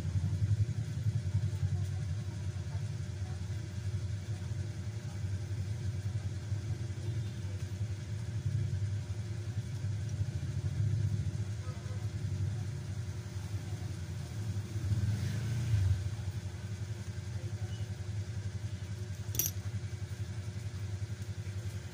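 A motor running with a steady low drone, with a few light clicks of small parts being handled and one sharp click near the end.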